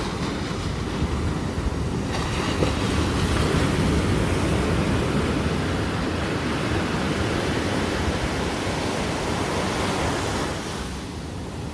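Rough sea surf crashing and washing on the beach, swelling in a few seconds in, with gusty wind buffeting the microphone.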